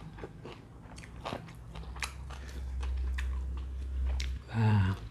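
Close-up chewing and eating sounds, with many sharp crunchy clicks as salted fish and sambal are eaten. Near the end comes a short voiced hum of enjoyment, the loudest sound here.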